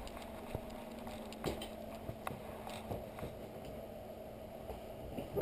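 Handling noise from a GoPro strapped to a puppy's back: scattered light knocks and rubbing as the puppy moves, with one much louder bump at the end, over a low steady hum.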